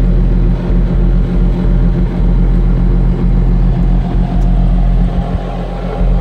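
Diesel engine of a Bobcat T870 compact track loader running steadily, a constant low hum, with the auxiliary high-flow hydraulics switched off.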